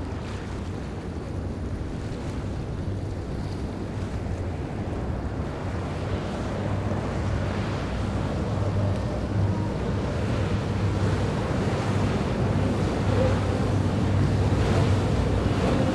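Large motor yacht running at speed: a low, steady engine drone under the rush of its bow spray and wake, growing louder as it comes close.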